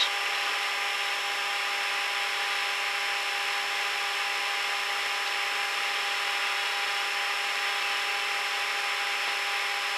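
Steady cockpit noise of a Cessna Citation Encore jet on final approach: an even rush of airflow with a few constant whining tones, unchanging throughout.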